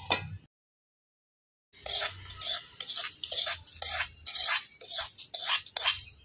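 Steel spoon scraping roasted red chillies and spices out of a steel kadai, in short repeated scrapes roughly two or three a second. At the start comes a brief clink of steel, then about a second of silence before the scraping begins.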